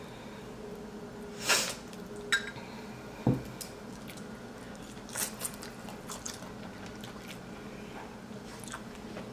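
Close-miked mukbang eating of a spicy seafood boil: chewing and wet squishing, with a few sharp cracks and clicks, the loudest in the first few seconds.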